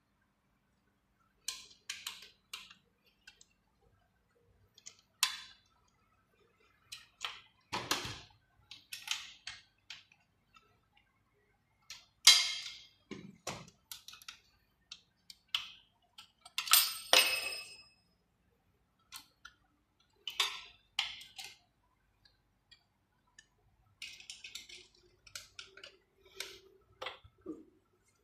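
Irregular clicks, clinks and knocks of metal stool parts and hand tools being handled and fitted while a swivel bar stool is put together. A few of the knocks ring briefly like metal, the loudest about twelve and seventeen seconds in.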